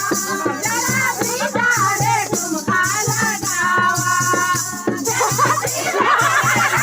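Music: a melody line over a quick, steady beat with a shaker-like rattle.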